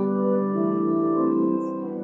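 Organ playing slow, sustained chords, the harmony shifting a couple of times.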